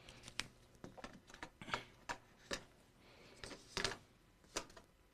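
Faint writing sounds: a dozen or so short, irregular taps and clicks with a brief scratchy stroke a little after three seconds, as letters are written out by hand.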